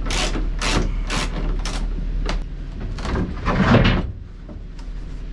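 A hand tool working at the fixings of a moulded lifeboat seat: four regular scraping strokes about half a second apart, then the seat scraping and knocking as it is pulled free, loudest a little before the end.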